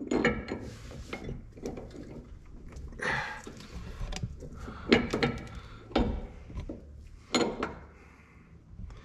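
Metal suspension hardware clinking and knocking as a trailer leaf spring end is handled against its equalizer hanger. Scattered light clicks, with three sharper knocks in the second half.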